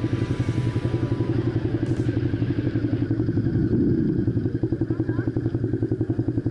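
Motorcycle engine running at low revs close by, with a rapid, even pulse.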